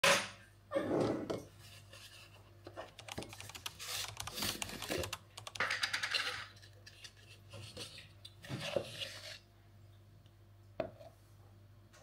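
Rapid clicking and scratching, with a few louder knocks: hands handling and opening a plastic supplement tub and dipping a measuring scoop into the powder, or a typing sound effect laid under the on-screen caption. One sharp knock comes near the end.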